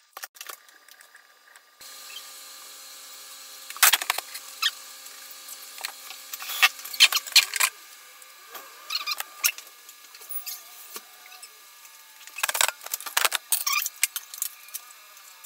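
Ceiling fan parts being handled and fitted to the ceiling mount: scattered clicks, knocks and rattles of the motor housing and a fan blade, in clusters. A faint steady hum runs under the first few seconds.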